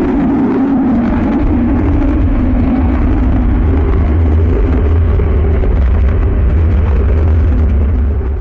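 Space-sound sonification presented as the sound of Saturn's rings: a steady, loud, noisy rumble with a deep low drone and a hum that sinks slightly in pitch in the first second or two.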